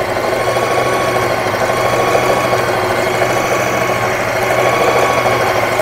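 Usha Janome Wonder Stitch Plus electric sewing machine running steadily under its foot pedal, sewing a close zigzag stitch with the stitch length turned down.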